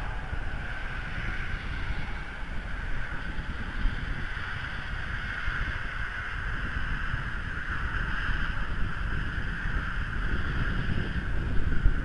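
Wind in a snowstorm buffeting an outdoor microphone: uneven low buffets under a steady rushing hiss.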